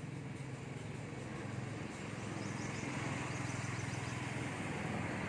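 A motor vehicle's engine running steadily, its noise building as it comes closer. Short, high bird chirps are heard faintly in the middle.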